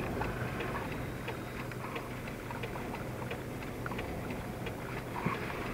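Steady road and engine noise inside a moving vehicle, a low even hum with a few faint scattered ticks.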